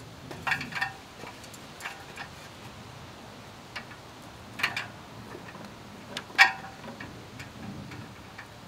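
Scattered clicks and knocks of an old, unused cable being pulled off a wall. They come at uneven intervals, and the two loudest, one a little before the middle and one about three quarters through, carry a short ring.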